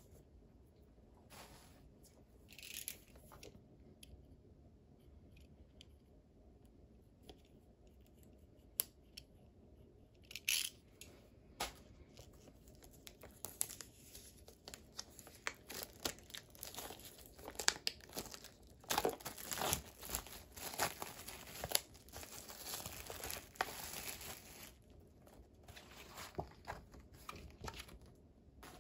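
Clear plastic shrink wrap being torn and peeled off a steelbook disc case. A few scattered clicks come first, then a long stretch of dense crinkling and tearing through the middle and latter part.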